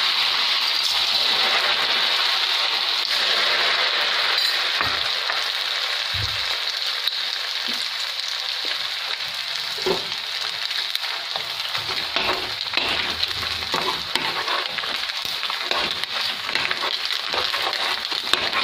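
Sago pearls deep-frying in hot oil in a steel kadhai: a loud, steady sizzle with scattered crackling pops, easing slightly as it goes on. A few light knocks of a metal slotted spoon in the pan.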